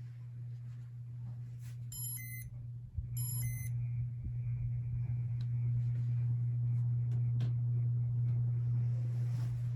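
Casablanca Stealth ceiling fan motor humming steadily, with two short electronic beeps about two and three seconds in as the Comfort Touch control takes a remote command. A click follows near three seconds, and the hum grows louder as the fan speeds up to a higher setting.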